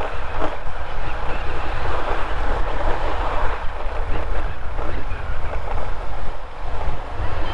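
Wind rushing and buffeting over the microphone of a motorcycle riding at road speed, with a low rumble underneath.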